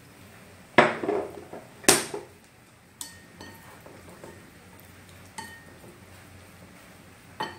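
Chopsticks knocking and clinking against a ceramic bowl while marinated duck tongues are tossed in it: about five sharp clinks with brief ringing, the loudest two in the first couple of seconds.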